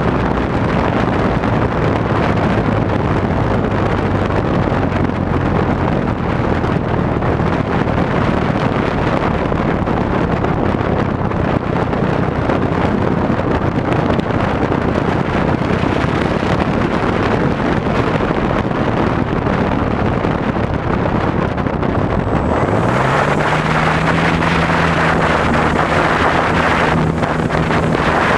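Cub airplane's motor and propeller droning steadily in flight, heard from a camera mounted on the plane with heavy wind rushing over the microphone. About 23 seconds in the pitch rises quickly and holds higher as the throttle is opened, and the rush of air grows louder.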